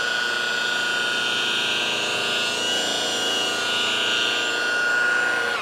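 Electric rotary polisher running at steady speed with a wool pad pressed into the edge of a boat's gel coat: a loud, even motor whine held at one pitch.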